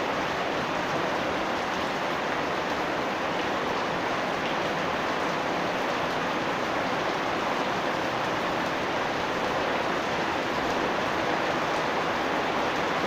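Steady rain falling on a yard, a dense even hiss with faint scattered drop ticks.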